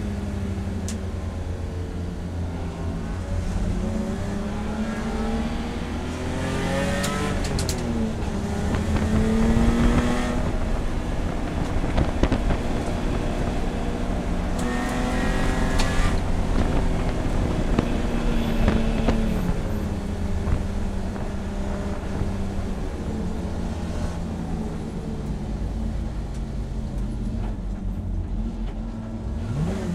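BMW E30 race car's engine heard from inside the cockpit, its pitch rising and falling as the driver works the throttle and changes gear. The revs drop low near the end.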